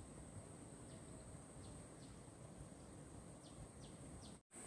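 Near silence: faint outdoor ambience with a steady high-pitched hum and a few faint short chirps, dropping out for an instant near the end.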